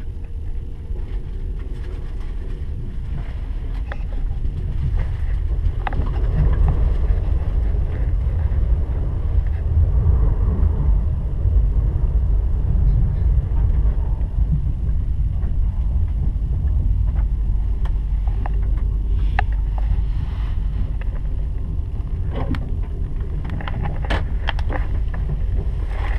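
A TGV high-speed train running, heard inside the passenger carriage as a steady low rumble that grows louder about six seconds in. A few short clicks sound near the end.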